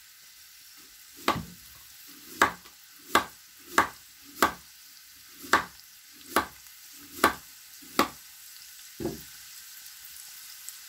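Kitchen knife slicing a carrot into rounds on a plastic cutting board: about nine sharp chops, one every second or less, followed by a duller knock near the end.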